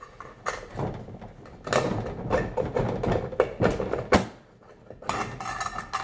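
A tin soup can being worked loose and pulled out of the plastic housing of a Wheelock 34T fire alarm horn: a run of irregular metallic clanks, knocks and scrapes.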